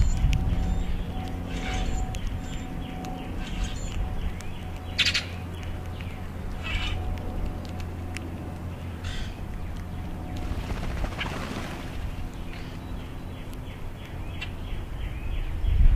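Common grackles giving short calls every two seconds or so while feeding, over a steady low rumble.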